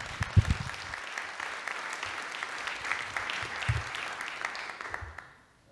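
Audience applauding at the end of a talk, a steady patter of many hands clapping that dies away about five seconds in.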